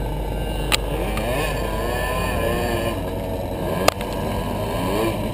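100cc McCulloch MC8 two-stroke kart engine running at low revs, its pitch wandering up and down. Two sharp knocks come from a hand bumping the helmet camera, one about a second in and one near four seconds.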